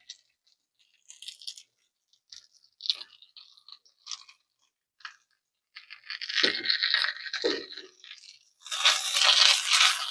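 Dry crunching and rustling in short scattered crackles, then two longer, louder bursts of crinkling crunch in the second half, the last the loudest.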